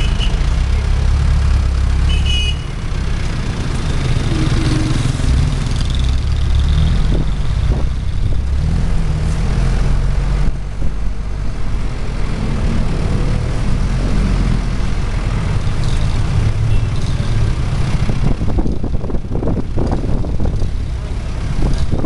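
Engine of a moving vehicle running steadily with road noise, the sound mostly low. Near the end, wind buffets the microphone in irregular gusts.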